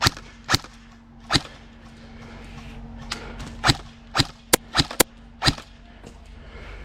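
Airsoft guns firing about nine single shots as sharp cracks at uneven intervals, coming quickest around the middle.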